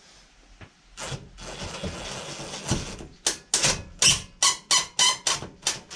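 DeWalt cordless drill driving a screw into a wooden wall panel through a long extension bar. A steady run, then short, sharp bursts about four a second as the screw is driven home.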